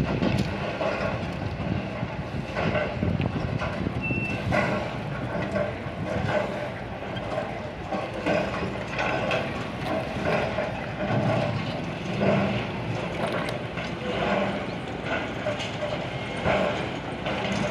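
Hydraulic excavator demolishing a masonry building: its diesel engine runs steadily under irregular crunches and knocks of breaking walls and falling rubble.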